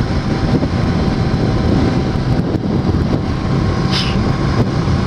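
Honda Shadow 750's V-twin engine running steadily at road speed, heard under heavy wind noise on the microphone.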